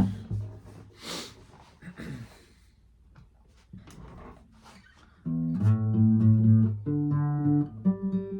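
A few scattered clicks and rustles, then about five seconds in a plucked string instrument starts playing a line of low, sustained notes that changes pitch every half second or so.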